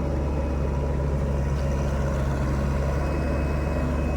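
SANY SY75C Pro excavator's diesel engine running at a steady speed, a constant low hum with no change in pitch.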